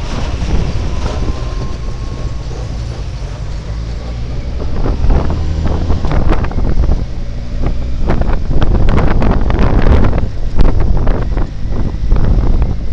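Benelli TRK 502's parallel-twin engine running under way, with wind buffeting the microphone. A cluster of sharp knocks and rattles comes in the second half.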